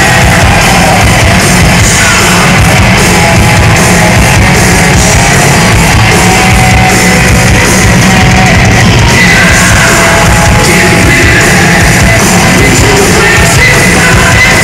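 Live hard rock band playing loud through the PA: distorted electric guitars and a drum kit in a steady full-band passage.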